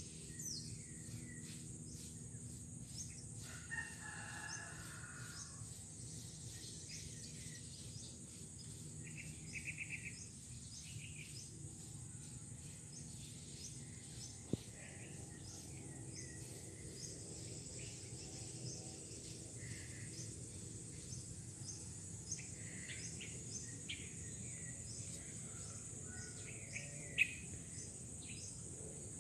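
Outdoor ambience of insects trilling steadily at a high pitch, with scattered bird chirps and calls throughout. A sharp click comes about halfway through and another near the end.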